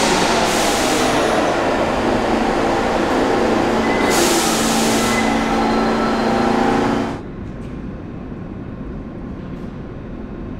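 New York City subway train running alongside the station platform: a dense rumble with steady whining motor tones and two bursts of high hiss. It stops abruptly about seven seconds in, leaving a quieter steady station hum.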